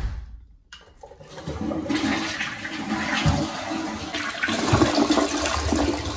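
Swiss Madison Burdon one-piece dual-flush toilet being flushed: a short knock as the push button is pressed, then, from about a second in, water rushing through the bowl and draining steadily.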